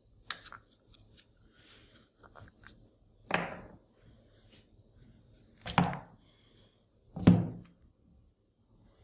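Three sharp knocks, about two and then one and a half seconds apart, with light clicks and rustles in between, as a rusty angle grinder's housing and parts are handled and taken apart.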